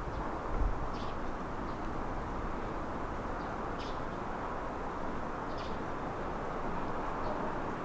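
Steady rushing blizzard wind, with a low buffet on the microphone about half a second in and a few faint, short high chirps.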